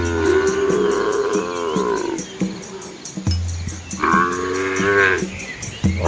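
Cattle mooing: two long moos, the first in the opening two seconds and the second about four seconds in, over background music with a low drone and a faint steady beat.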